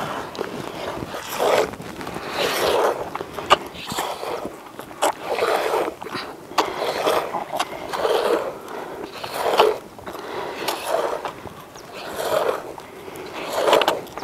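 Cow being milked by hand, streams of milk squirting into a container in a steady rhythm of roughly one squirt a second, each a short hissing splash.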